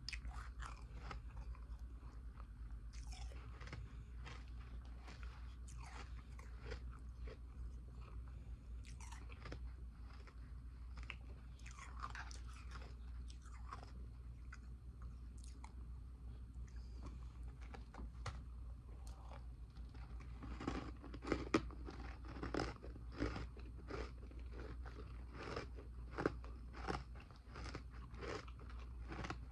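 Powdery ice dumplings being bitten and chewed close to the microphone: a continuous run of crisp crunches that comes faster and louder in the last third, over a steady low hum.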